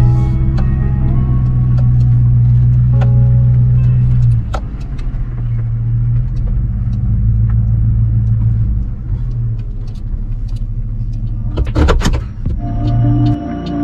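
Pickup truck driving on a rough dirt road, heard from inside the cab: a steady low engine and road drone that eases a little about four seconds in, with small rattles. A cluster of loud knocks comes near the end.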